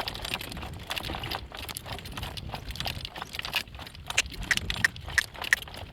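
Metal driving-harness fittings and the cart jingling and clinking as a young horse is driven along, with hoofbeats in the mix. A low wind rumble sits on the microphone underneath.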